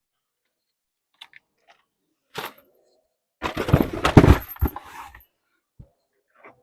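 Phone camera and its microphone being handled and repositioned: a few small clicks, then a longer spell of rubbing, knocking and rumbling against the microphone a few seconds in, ending in a single light knock.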